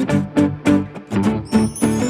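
Background music: a plucked, guitar-like tune with notes picked in a quick, even rhythm, and a high jingling shimmer coming in near the end.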